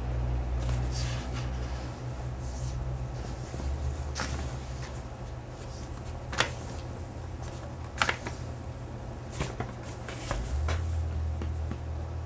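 Sheets of paper being handled and shuffled, with a few short, sharp crackles spread through the pause, over a steady low room hum.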